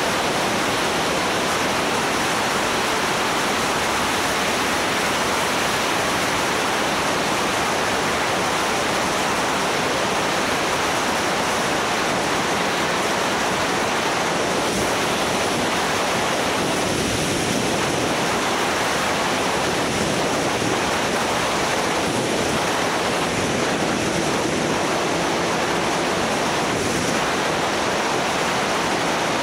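Steady wind rush over the microphone of a camera on a moving motorcycle, with a faint steady engine tone beneath it.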